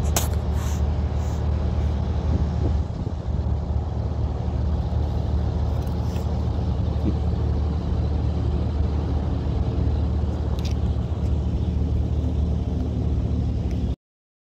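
Steady low rumble of an idling engine, like a nearby truck or other vehicle, with a few faint clicks. It cuts off suddenly near the end.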